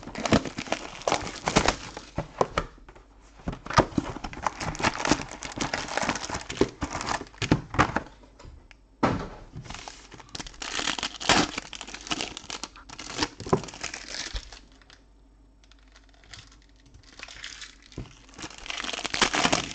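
Plastic wrapping and foil trading-card packs crinkling and tearing in quick irregular bursts as a sealed box of cards is unwrapped and its packs are handled, with a quieter spell of a few seconds near the end.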